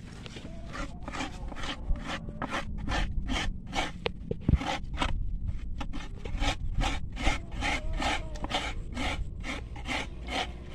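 Coconut meat being grated on a bench-mounted coconut scraper (kudkuran): quick rasping strokes, about three a second, as the coconut half is pushed over the serrated blade.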